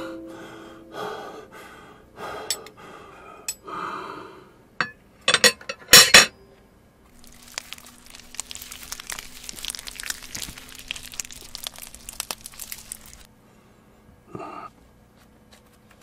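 Close-miked hands handling a piece of food: a few sharp clicks and taps about five to six seconds in, then about six seconds of dense crinkling and crackling as the fingers work over it, with two short soft sounds near the end.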